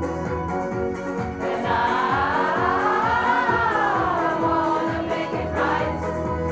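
Pop choir of mixed voices singing held chords. In the middle the chord swells and glides up in pitch, then back down.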